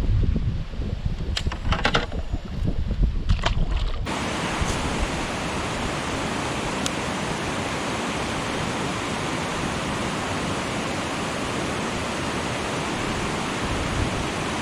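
Strong wind buffeting the microphone as a heavy low rumble, with a few sharp knocks, then about four seconds in an abrupt switch to a steady, even rushing hiss of wind and water.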